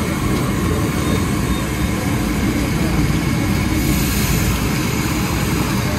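Fish deep-frying in large woks of hot oil: a steady, loud sizzle over a low rumble, the hiss turning brighter about four seconds in.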